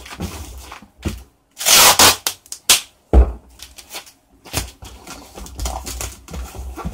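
Clear adhesive tape pulled off the roll and pressed onto a paper-wrapped parcel, with paper rustling under the hands. A loud rip comes about two seconds in, a shorter one just before three seconds, then a sharp knock.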